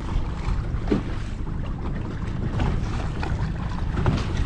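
Wind buffeting the microphone, with waves slapping against the bow of a small boat running through choppy water.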